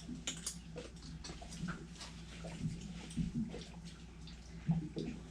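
Wet eating sounds of fruit cereal in coconut and pomegranate juice: scattered small clicks, slurps and chewing, over a steady low hum.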